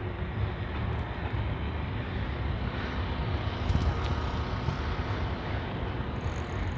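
Steady wind rush and rumble on the microphone of a camera riding along on a moving bicycle, with road noise underneath.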